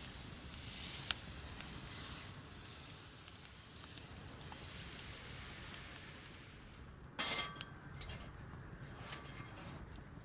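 Food sizzling in a hot pan over a wood fire, a steady hiss with small ticks. About seven seconds in comes a short metallic clatter.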